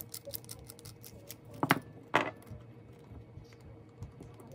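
Light metallic clicks and clinks of a hex driver, small screws and the metal engine mount being handled while a Traxxas TRX 2.5 nitro engine is taken apart, with two louder clunks close together a little under two seconds in.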